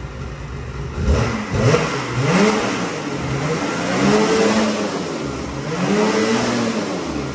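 Ski-Doo Gen5 850 E-TEC Turbo two-stroke snowmobile engine on its stock exhaust can, blipped three times, the pitch rising and falling with each rev. It is a totally cold start still in warm-up mode, so it doesn't open right up, and it sounds pretty quiet through the stock can.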